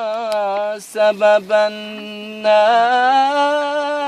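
A man's voice singing an Arabic nasheed unaccompanied, drawing out long notes with vibrato and breaking into a few short notes about a second in.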